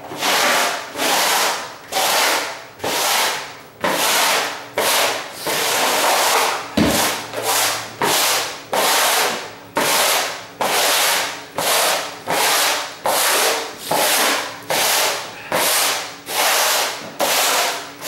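Broom bristles sweeping a bare floor in short, even strokes, about one a second, with one sharper knock about seven seconds in.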